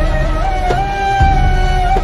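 Background music: a held melody that glides between notes over a heavy, steady bass.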